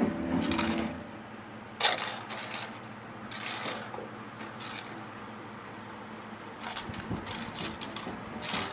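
Kitten's paws tapping and scrabbling on a wooden peek-a-boo toy box as it fishes for the balls inside, the balls knocking and rattling against the wood: scattered sharp clicks, coming thicker near the end.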